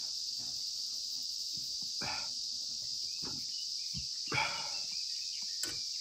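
Steady high-pitched drone of a summer insect chorus, with a few brief close noises over it, the loudest about four and a half seconds in.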